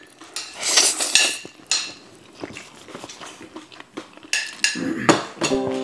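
Noodles being slurped in several short sucks, mixed with metal forks and chopsticks clinking and scraping against ceramic plates.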